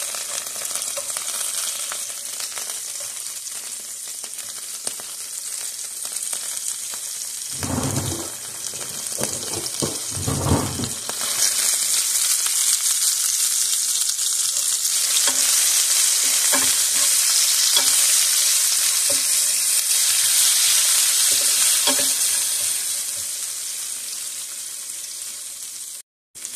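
Sliced onions sizzling as they fry in seasoned oil in a nonstick frying pan, the sizzle growing louder about halfway through. A few low thumps come around eight and ten seconds in, and light clicks follow later.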